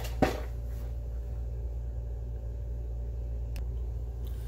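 A steady low hum in the workshop, with one sharp click about a quarter second in and a faint tick later, as the small soldered brass part is handled.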